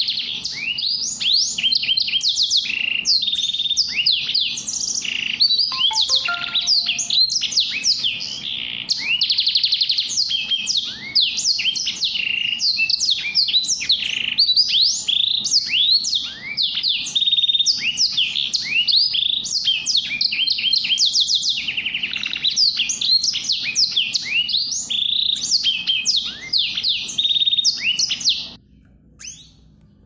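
Small finches chirping and twittering rapidly in a dense, continuous stream of high, quick sweeping notes that cuts off abruptly about two seconds before the end.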